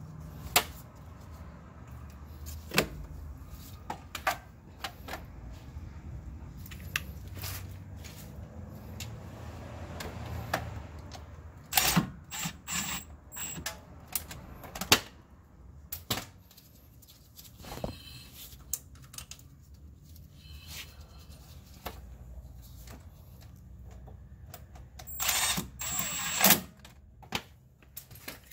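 Scattered metal clinks, knocks and taps of hand work on the new front axle shaft's inner joint as it is fitted to its flange and its bolts are put in by hand, with louder clusters about halfway through and near the end.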